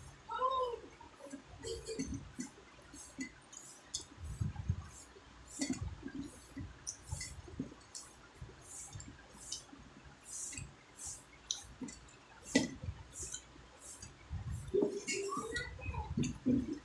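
Close-up eating sounds: a person chewing soft rice roti dipped in wet tomato chutney, with many sharp lip smacks and mouth clicks. Fingers squish through the chutney with occasional light clinks against a steel bowl.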